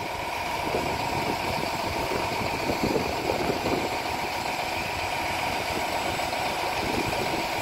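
Diesel engines of a concrete mixer truck and a concrete pump truck running steadily at idle, with a steady high whine over the engine noise.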